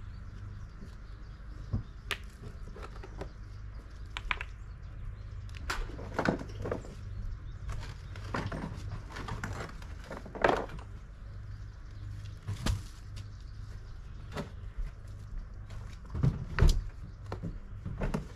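River rocks clunking against each other and the garden wagon as they are lifted out by hand, a scatter of irregular knocks with louder ones about ten seconds in and near the end, over a steady low rumble.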